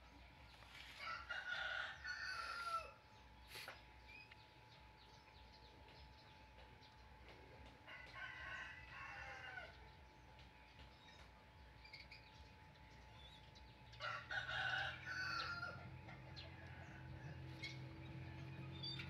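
A rooster crowing three times, several seconds apart. A low steady hum comes in about two-thirds of the way through.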